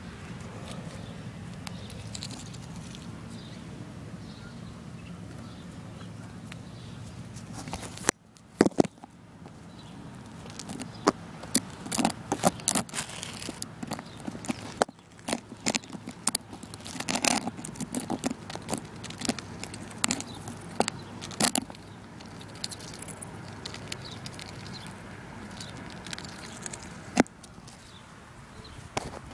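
A duck pecking at goldfish crackers on the grass: a run of sharp clicks and crunches starting about eight seconds in and thinning out later, over a steady low rumble.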